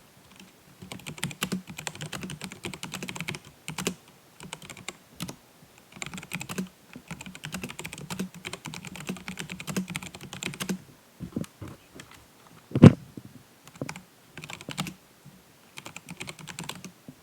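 Typing on a Sharkoon SGK1 mechanical keyboard with tactile Kailh Brown switches: quick runs of key clicks broken by short pauses. One single strike about two-thirds of the way through is much louder than the rest.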